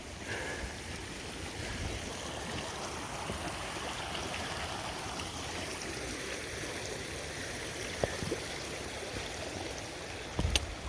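A mountain river rushing steadily over rocks at a trail crossing, with a short knock about eight seconds in and a louder one near the end.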